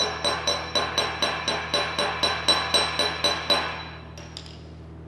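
Small hammer peening a fresh tool-steel weld bead on a D2 tool steel die block, quick ringing metal-on-metal strikes at about four a second, to stress relieve the weld. The hammering stops about three and a half seconds in, and the hammer is laid down on the steel bench with a couple of light clicks, over a steady low hum.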